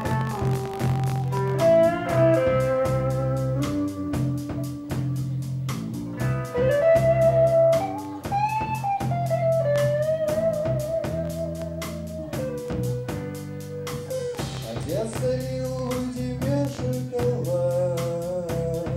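Live band music: a guitar-led melody with held, wavering notes over bass and a steady drum beat.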